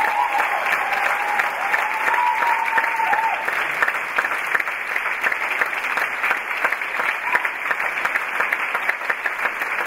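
Theatre audience applauding steadily with many hands clapping at the end of a ballet pas de deux, during the dancers' bows.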